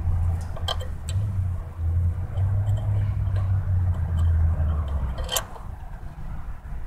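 A 2000 Mazda Protege's 1.6 L four-cylinder engine idling with an uneven, lumpy drone. This rough idle is typical of a faulty engine ground cable. A few sharp clicks sound over it, the loudest about five seconds in.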